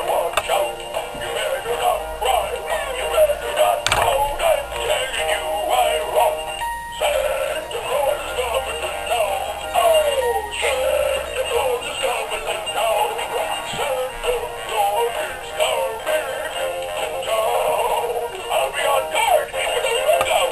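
A dog's howling, processed by software into a synthetic-sounding sung melody with wavering, gliding notes.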